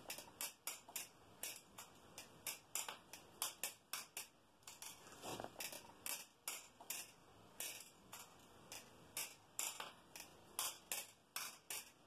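Balisong (butterfly knife) being flipped through full twirls and a hand-to-hand waterfall transfer. Its handles and blade clack together in an uneven string of sharp metallic clicks, about three a second.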